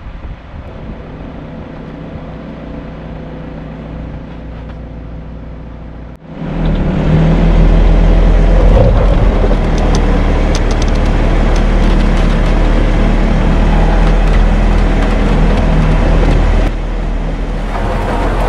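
Off-road vehicle's engine running as it drives a rough track, with scattered rattles and clicks. About six seconds in the sound cuts abruptly to a much louder, fuller engine and road noise, which steps down a little near the end.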